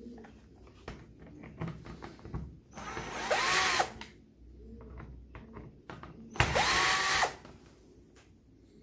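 Bosch PSR 12 cordless drill-driver run in two short bursts of about a second each, its motor whine rising quickly, holding, then dropping off, as it turns screws in the plastic steering-column switch housing. Light plastic clicks and knocks from handling the part come between the bursts.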